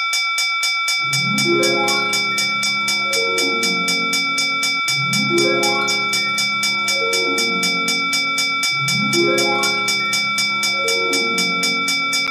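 Railroad crossing bell sound effect ringing in rapid, even strikes, about five a second. Under it, a lower layered tone builds up in steps and restarts about every four seconds.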